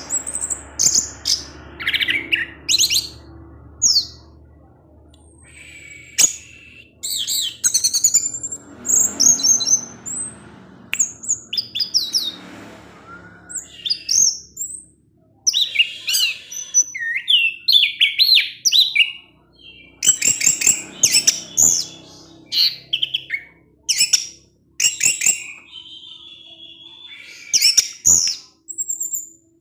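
Orange-headed thrush singing: a fast, varied run of short high chirps, whistles and trills, phrase after phrase with brief pauses between.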